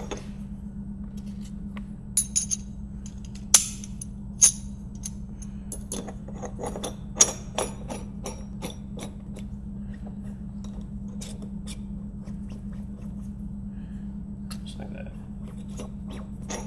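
Hard metal clicks and clinks of steel ER collets and a collet nut being handled and fitted onto a steel collet fixture. The clicks are scattered, loudest and most frequent in the first half, over a steady low hum.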